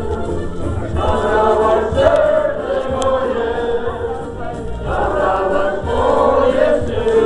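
A group of voices singing a song together, holding notes that move up and down.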